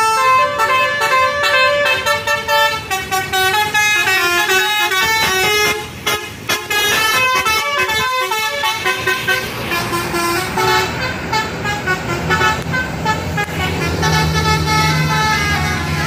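Bus telolet horn, a Basuri multi-tone air horn, playing a fast melody of short stepping notes, breaking off briefly about six seconds in, then carrying on more faintly. A bus engine's low rumble rises near the end.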